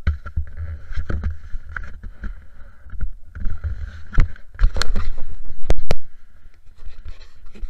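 Rumbling and knocking of handling noise on a helmet camera's microphone, uneven throughout, with several sharp clicks near the middle.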